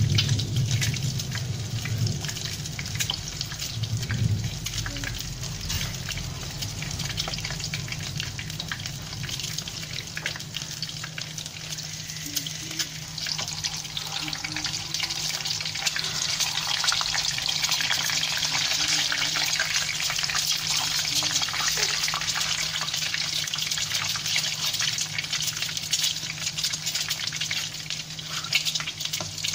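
Peeled hard-boiled eggs frying in very hot oil in a wok: a steady sizzle full of fine spattering crackles, growing louder about halfway through as the egg skins blister and brown.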